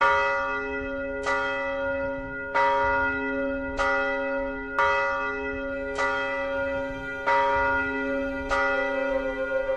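A single church bell struck over and over, about eight strokes a little over a second apart. Each stroke is the same note, and its ringing carries on into the next.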